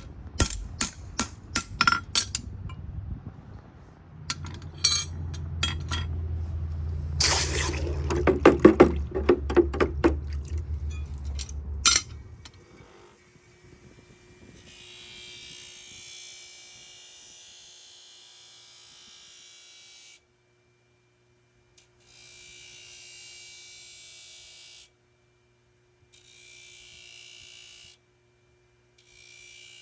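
Hoof-care work with metal tools: a run of sharp hammer knocks and metallic clinks over a low hum for about twelve seconds. Then a small electric tool runs with a steady high buzz in short stretches that stop and start abruptly.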